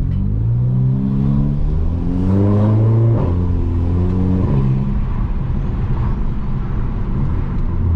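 Volkswagen Jetta 2.0 TSI's turbocharged four-cylinder engine with a full aftermarket exhaust, accelerating. The engine note climbs, drops sharply about three seconds in, climbs again, then falls back about a second and a half later and runs on steadily.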